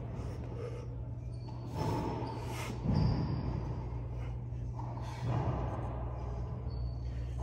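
A man breathing out hard three times with the effort of kneeling cable crunch reps, over a steady low hum.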